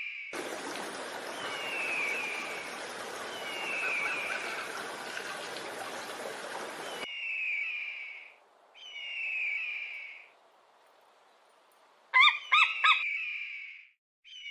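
Bird-of-prey screams repeated about five times, each a falling call about a second long. For the first seven seconds they sit over a steady rushing hiss that cuts off abruptly. Near the end comes a quick run of four or five sharp, louder yelping notes.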